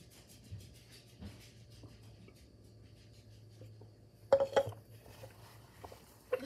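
A hard plastic tumbler set down on a counter with a few sharp knocks about four seconds in, after a couple of faint swallows, over a low steady hum.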